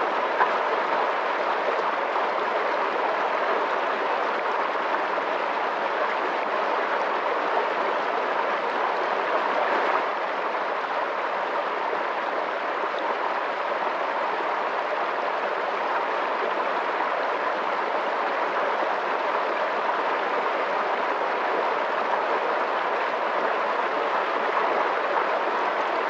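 Fast-flowing water rushing steadily, an even unbroken noise with no change in strength.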